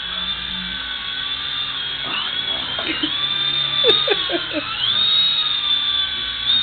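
The small electric motor and rotors of an RC mini helicopter give a high whine that wavers in pitch as the throttle changes. About four seconds in there is a sharp click as the helicopter comes down on the floor against the cat. The whine sags, then climbs back up.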